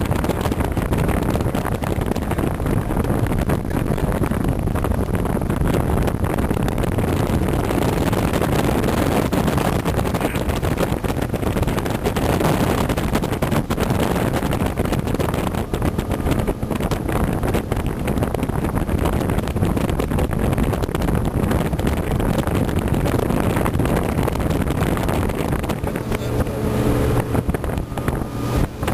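Motorboat engine running steadily with the boat under way, mixed with wind noise on the microphone. Near the end the engine's steady hum stands out more clearly.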